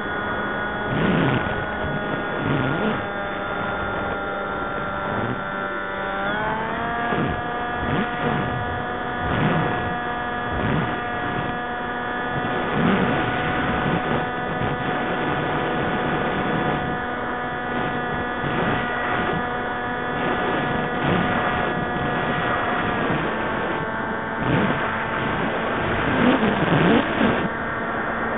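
Motor of an FPV radio-controlled aircraft, heard through its onboard camera as a steady whine with wind buffeting the microphone. The pitch rises quickly about six seconds in as the throttle opens, and drops back down about two-thirds of the way through.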